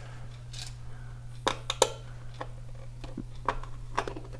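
Handling of a plastic drone controller, with a series of sharp clicks and taps as its AA battery compartment is checked. The two loudest clicks come close together near the middle. A steady low hum runs underneath.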